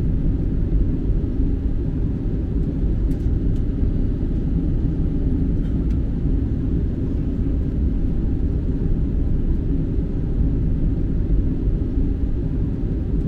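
Steady low rumble and hiss of the cabin air supply in an Airbus A320 cabin.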